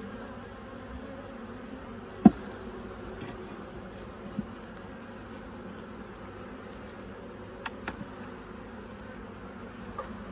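A mass of honeybees buzzing steadily around a disturbed hive, the colony in turmoil with two rival queens. A single sharp knock comes about two seconds in, with a fainter knock and a couple of light clicks later.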